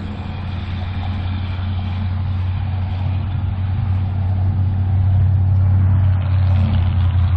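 A steady low rumble or hum, like a running engine or wind on the microphone, growing somewhat louder through the second half.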